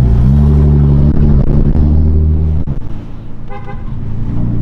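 Lamborghini engines running close by with a deep, steady drone that cuts off sharply a little over halfway through. A short car-horn toot follows, with quieter engine sound underneath.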